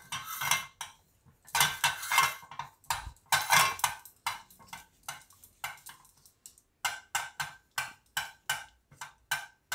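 Slim rolling pin rolling out a thin wheat-flour papad on a plastic sheet over a board: a series of rubbing, knocking strokes. The first few are longer; in the last three seconds they become short, quick strokes about three a second.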